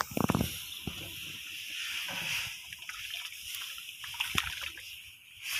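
Ladle stirring and sloshing thick laksa broth in a metal wok, loudest just after the start, over a steady hiss from the simmering pot and wood fire, with a few light clicks near the end.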